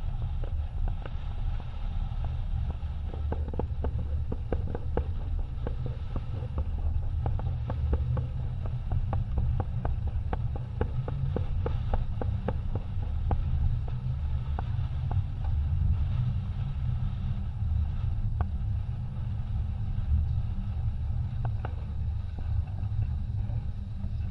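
Wind buffeting the microphone on a yacht sailing hard upwind, a heavy, gusting low rumble, with water rushing past the hull. Many small sharp ticks come through the middle stretch.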